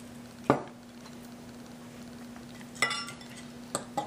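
A metal fork stirring dry chickpea flour in a glass bowl, clinking against the glass a few times. The sharpest clink comes about half a second in, and one near three seconds rings briefly.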